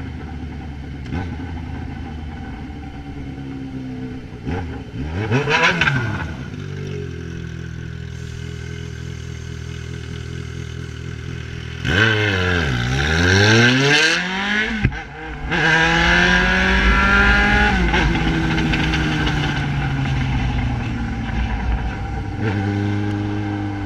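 Yamaha XJ6 inline-four motorcycle engine with an Atalla 4x1 aftermarket exhaust, running steadily. It revs briefly about five seconds in, then pulls hard about twelve seconds in and holds high revs, and the pitch eases down slowly before settling again near the end.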